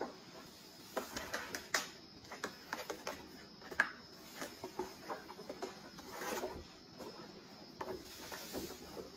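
Kittens' claws scrabbling and scratching on a corrugated cardboard cat scratcher as they climb and jump on it: irregular quick clicks and scratches.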